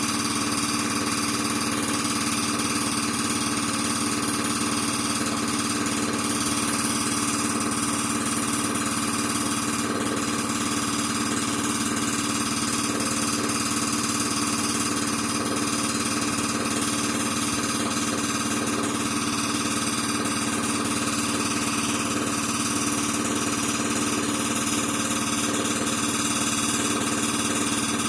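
Air compressor running steadily.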